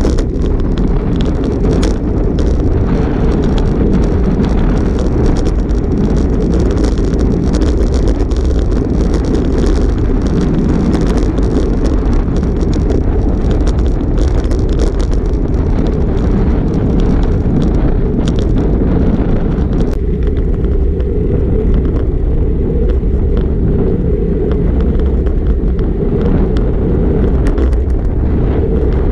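Wind buffeting the microphone of a handlebar-mounted GoPro on a road bike moving at about 16 to 17 mph: a loud, steady low rumble. The lighter hiss above it thins out about twenty seconds in.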